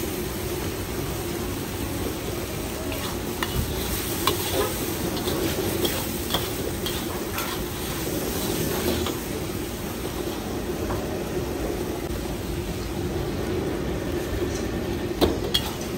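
Yellow noodles (mee goreng) sizzling and frying in a wok while a metal ladle stirs and tosses them, scraping and clinking against the wok now and then, with two louder clanks near the end.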